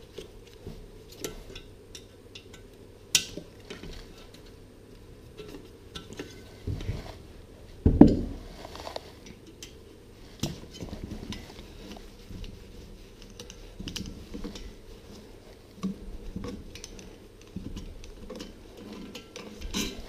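Allen keys and metal parts clinking and tapping as they are handled and worked, with scattered light clicks, a sharper click about three seconds in and a louder knock about eight seconds in.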